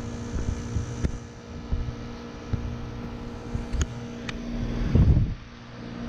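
2006 3-ton Heil heat pump outdoor unit running steadily in heating mode after a full defrost cycle: a steady compressor and fan hum with a few light clicks. Near the end there is a brief, louder low rumble on the microphone.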